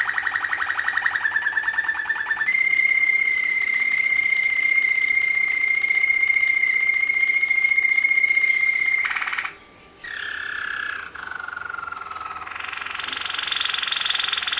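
Domestic canary singing: a fast rolling trill, then one long steady whistled note held for about six seconds, a brief break, a lower note gliding down, and a higher rolling trill near the end.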